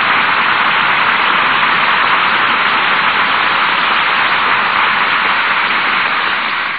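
Studio audience applauding steadily, dying away near the end, heard through the muffled, treble-cut sound of a 1930s radio broadcast recording.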